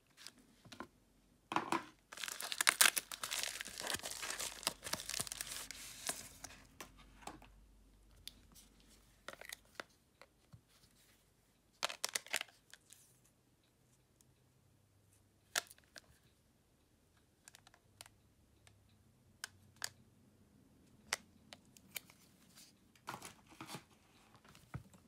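Phone disassembly handling: about two seconds in, a tearing, crinkling noise that lasts about five seconds, then scattered small clicks and taps of tools and parts.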